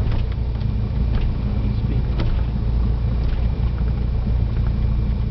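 Cessna 172's piston engine and propeller running at low power, heard inside the cabin as a steady drone, while the plane rolls along the runway after touchdown.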